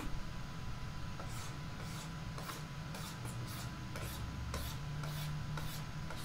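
Computer mouse clicking and scrolling, about a dozen short, faint clicks at an irregular pace over a steady low hum.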